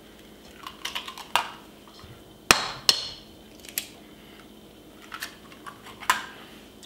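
Eggs being tapped and cracked on the rim of a stainless steel mixing bowl: a scattered series of sharp taps and clicks, the loudest two about two and a half and three seconds in.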